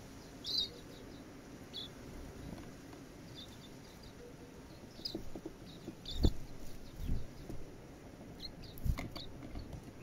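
Silvereyes giving short, high single chirps scattered through, with a few dull knocks on the wooden feeder as birds land and peck at the seed cake, the loudest about six seconds in.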